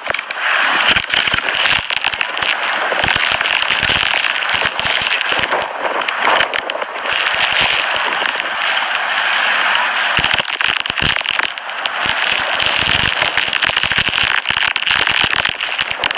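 Hurricane wind and driving rain battering the microphone: a loud, unbroken rush of noise with constant crackling pops from the wind buffeting it.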